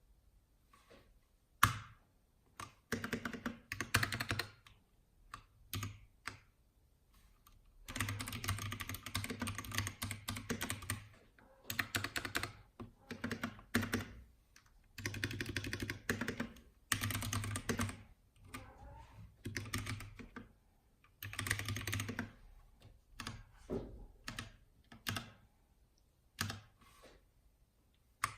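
Typing on a Massdrop CTRL mechanical keyboard with Halo Clear tactile switches: rapid clacking keystrokes in bursts of a few seconds, with short pauses between them and one sharp loud key strike near the start.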